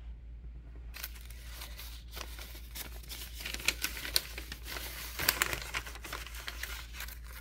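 Brown kraft paper envelope being handled and opened: irregular crinkling and rustling, with sharper crackles in the middle.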